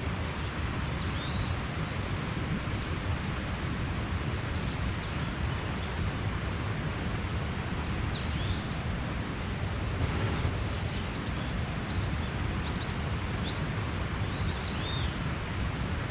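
Mountain stream rushing steadily, with small birds giving short, high chirps again and again over the water.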